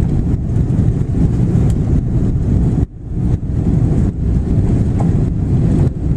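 Loud, steady low rumble heard inside the cabin of an Airbus A330-300 during landing, from its engines and the air rushing past, with a brief dip about three seconds in.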